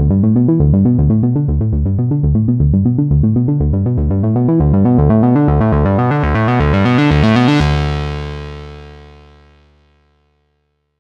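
GForce Oberheim SEM monophonic synthesizer plug-in playing a fast, repeating bass pattern that grows steadily brighter. About seven and a half seconds in, it settles on one held low note that fades away over a couple of seconds.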